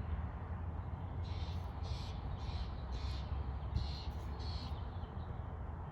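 A bird giving a series of about six harsh calls, roughly half a second apart, over a steady low outdoor rumble.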